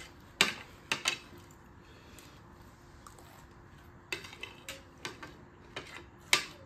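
Metal spoons and forks clinking and scraping on ceramic plates in scattered sharp clinks: a few about half a second to a second in, a quiet spell, then a run of clinks from about four seconds, the loudest near the end.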